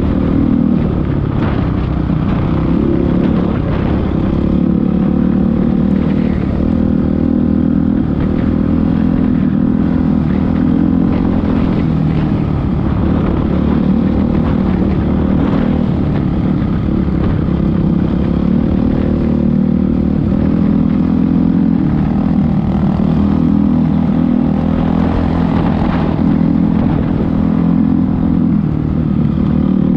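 Dirt bike engine running under way, heard on board the bike, its pitch rising and falling with the throttle, with the odd knock from the rough track.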